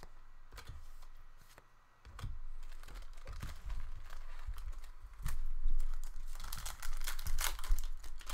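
A trading-card pack wrapper crinkling and tearing as the pack is opened, with cards handled in between. It gets louder and more crackly from about five seconds in.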